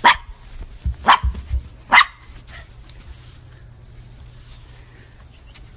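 Small dog barking three sharp times, about a second apart.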